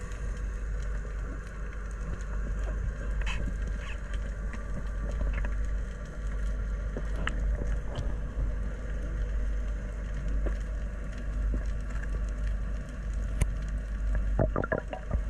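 Underwater sound picked up by a diver's camera: a steady low rumble with a faint steady hum, scattered small clicks and crackles, and a short cluster of louder knocks near the end.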